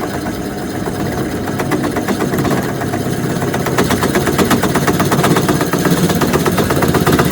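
Drill press spinning a 45-degree chamfer router bit as it cuts a large countersink into a metal mounting plate, with a steady motor hum and a rapid chattering rattle that gets louder as the cut goes in. The chatter comes from the drill press turning slower than a router would.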